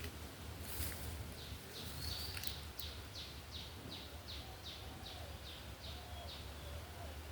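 A bird calling in a quick run of short, high, falling notes, about three a second, for some five seconds before stopping, over a low steady rumble of outdoor background noise.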